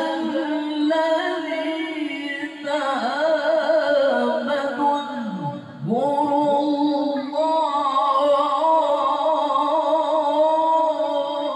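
A man's melodic Qur'an recitation (tilawah), sung into a handheld microphone, with wavering ornamented runs. About halfway through there is a short break for breath, then one long ornamented note held to near the end.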